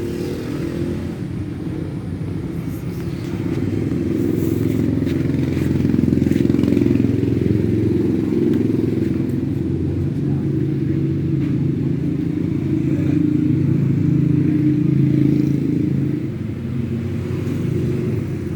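A steady low engine rumble, like a motor running nearby. It grows louder a few seconds in and eases slightly near the end.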